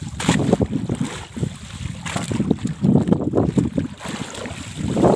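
Strong wind buffeting the microphone in uneven gusts, over the wash of water around a small fishing boat at sea.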